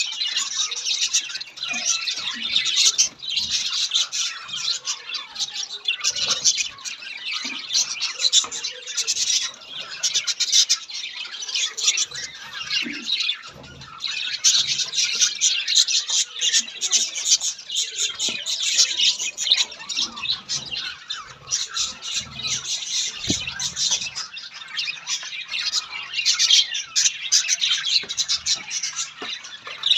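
Pet budgerigars chattering and squawking continuously, a dense overlapping stream of high chirps.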